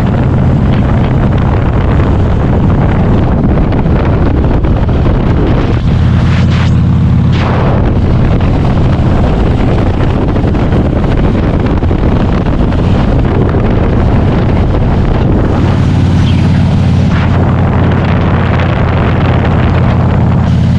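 A loud, steady low rumble with wind buffering the microphone.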